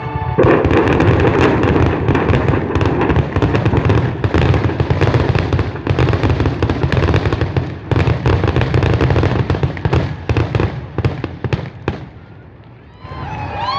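Fireworks going off in a dense, rapid barrage of bangs and crackles for about ten seconds, thinning out and dying away. Music starts up just before the end.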